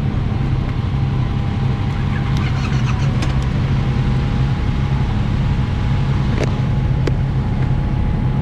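Yamaha MT-07's 689 cc parallel-twin engine running steadily with no revving, with a few light clicks.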